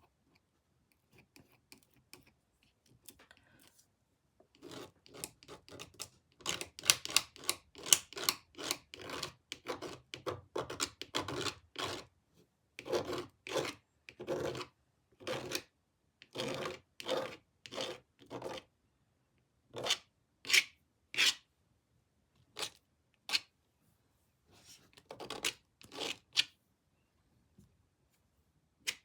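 Paint being worked onto the surface of a jigsaw puzzle in short rubbing, scratchy strokes: a fast run of strokes, then slower separate strokes with pauses between them.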